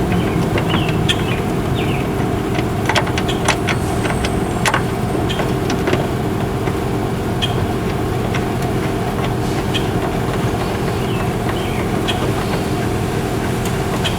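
A steady engine drone, like a vehicle idling, runs throughout. Over it come scattered light clicks and taps from seatbelt hardware and a screw being fitted by hand.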